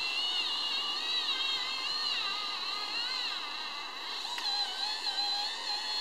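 Electric whine of a model tipper trailer's lift mechanism, raising the loaded tipper body; the pitch wavers and glides up and down as it works.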